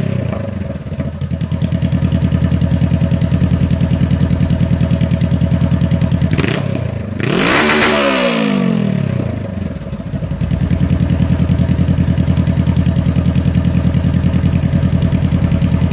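2014 Honda CBR500R's parallel-twin engine through a straight-pipe exhaust. It settles to a pulsing idle, gets one sharp throttle blip about six and a half seconds in whose revs fall back over a few seconds, then idles again.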